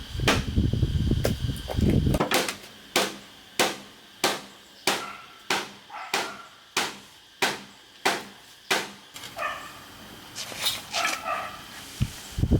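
About a dozen steady, evenly spaced blows of a tool striking bamboo, roughly one every 0.6 seconds. Each blow is a sharp knock with a short ring, typical of hammering or chopping while building bamboo furniture.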